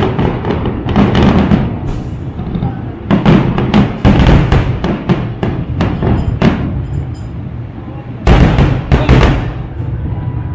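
Fireworks finale: aerial shells bursting in an irregular run of booms and crackles over a deep rumble, with a loud cluster of bangs about eight seconds in before they thin out. Music plays underneath.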